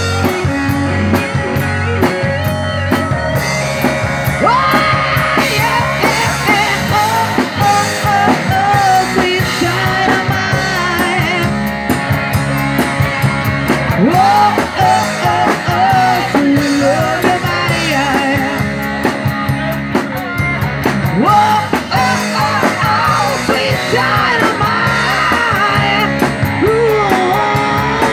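A live rock band playing: electric guitars, electric bass and drum kit, with a lead melody that slides up and down in pitch over the rhythm.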